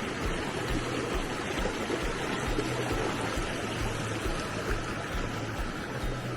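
Mountain stream flowing over rocks: a steady rush of water.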